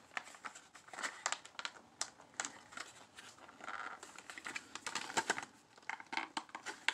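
Thin clear plastic packaging tray crinkling and clicking as trading cards are worked loose from it by hand: irregular small clicks and rustles.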